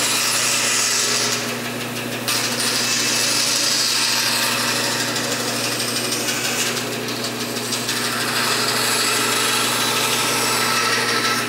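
Porter-Cable band saw running with a steady motor hum while its blade cuts through a thin wooden board along a sharp curve. The cutting noise eases off briefly about one and a half seconds in and again around seven seconds, then picks up again as the board is fed back into the blade.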